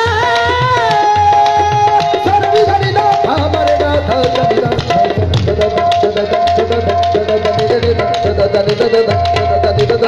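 Qawwali music: a harmonium plays a melody with held notes over a hand drum struck in a quick, steady rhythm.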